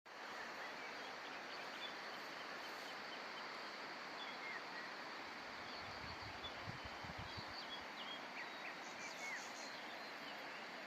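Outdoor ambience: a steady rushing noise with small birds chirping here and there, and a few low thuds about six to seven seconds in.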